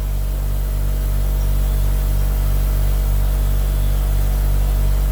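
Steady low electrical hum with an even hiss and a faint regular pulsing, the background hum of the recording.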